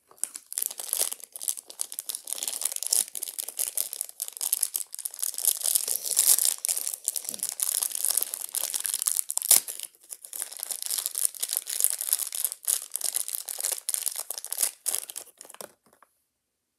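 Small plastic wrapper being crinkled and torn open by hand: dense, rapid crackling that stops abruptly near the end.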